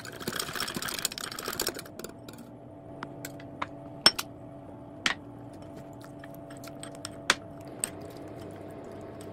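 Wire whisk beating a thick yogurt marinade in a glass bowl, a rapid scraping for about the first two seconds. After that come a handful of sharp clinks of utensils against the glass as the chicken is coated, the loudest about four seconds in, over a faint steady hum.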